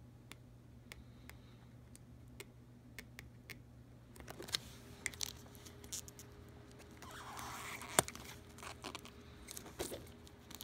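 Single-edge razor blade picking and scraping at the edge of PDLC smart film to get between its layers, with small clicks and crinkling of the plastic sheet. The handling gets busier about four seconds in, with one sharp click near eight seconds.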